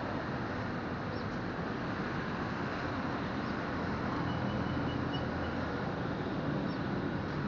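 Steady street noise with a low engine hum throughout, and a few faint short high chirps over it.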